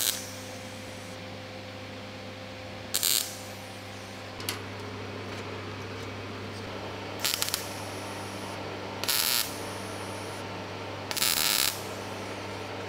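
MIG welder laying short tack welds on thin sheet steel: five brief bursts of arc a couple of seconds apart, kept short so as not to burn through or overheat the thin metal, over a steady low hum.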